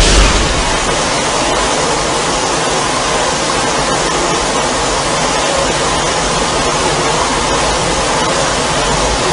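A loud, steady rushing noise with no pitch or rhythm, swelling briefly at the start and then holding even.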